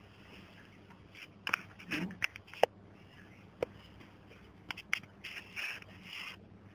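Scattered sharp clicks and brief scraping rustles: a cluster of clicks with a short scrape about two seconds in, a few single clicks after, and a longer rustle about five to six seconds in.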